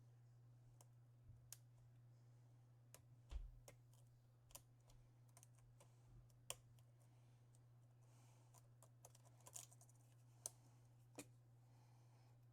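Faint, irregular clicks and ticks of a lock pick working the pin stacks of an Assa Twin 6000 cylinder under light tension, over a steady low hum.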